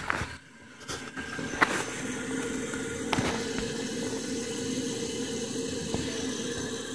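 1986 Crane Radcliffe toilet tank refilling after a flush: the Fluidmaster 400 fill valve lets in water with a steady hiss and a faint steady hum. A few knocks come in the first couple of seconds.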